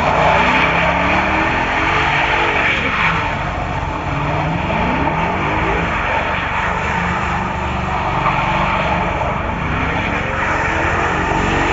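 Loud, steady motor-vehicle engine and road noise, with engine pitches gliding up and down several times.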